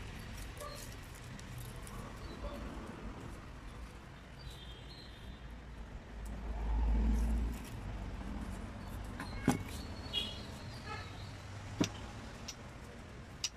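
A few sharp clicks of metal tools and engine parts being handled and set down on a wooden workbench, over a low background rumble that swells loudly for a second or so about six seconds in.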